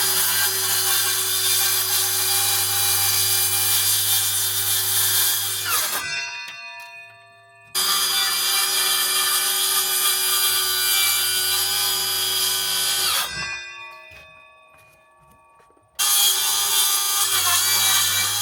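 Electric power saw cutting lumber, run three times: each time the motor starts abruptly, runs steadily through the cut, then winds down with a falling pitch.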